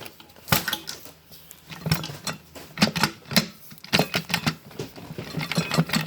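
Irregular metallic clinks and knocks from a Turbo 350 automatic transmission's internal parts as the input shaft and forward clutch hub are worked loose and pulled from the case.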